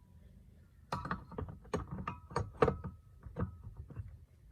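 Metal scooter transmission parts clinking and knocking together as they are handled, a dozen or so irregular sharp clicks with a faint metallic ring, starting about a second in.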